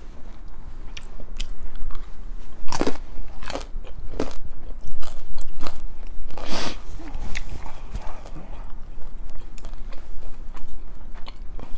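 Close-miked chewing of a mouthful of tteokbokki, with irregular mouth clicks, a few louder than the rest.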